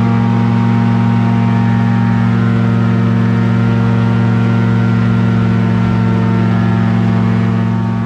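Airboat's engine and propeller running steadily under way, a loud even drone heard from inside the covered cabin. It fades out near the end.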